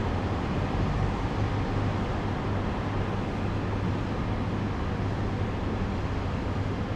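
Street traffic noise from cars passing, over a steady low hum.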